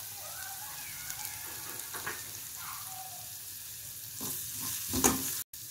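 Green chilli, ginger and garlic paste with curry leaves sizzling in hot oil in a kadhai as turmeric is sprinkled in. A few knocks and scrapes of the spatula come near the end.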